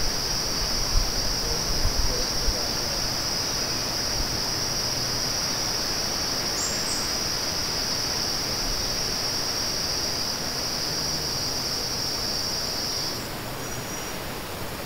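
Steady, high-pitched insect drone, typical of tropical forest insects, over a constant hiss. It cuts off abruptly about thirteen seconds in. A few low thumps come in the first couple of seconds.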